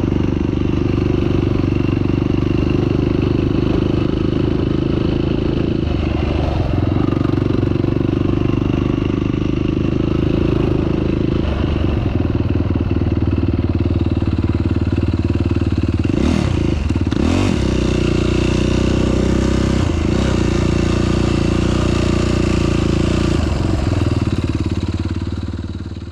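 Off-road vehicle engine running steadily, with a brief rise and fall in revs about two-thirds of the way through, fading out at the end.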